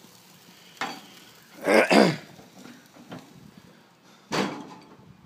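Faint sizzling of a beef burger patty on a grill. Two sharp knocks come about a second in and near the end, and a short wordless vocal sound from the cook comes about two seconds in.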